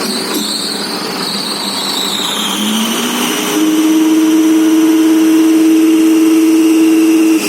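An engine running, its pitch stepping up about three seconds in and then holding steady, louder, at a higher speed.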